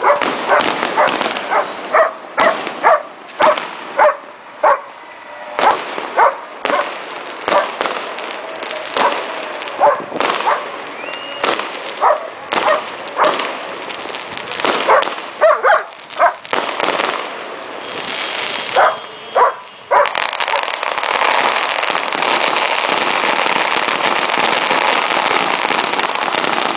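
Fireworks and firecrackers going off in quick succession, mixed with a dog barking. About twenty seconds in, the separate bangs give way to a dense, unbroken crackle, like a long string of firecrackers firing.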